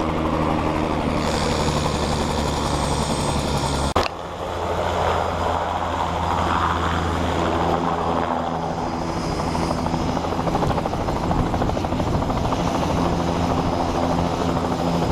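Bell 206 helicopter's turboshaft engine and rotor running on the ground: a steady, loud hum made of several even tones. A sharp click comes about four seconds in, after which the hum carries on.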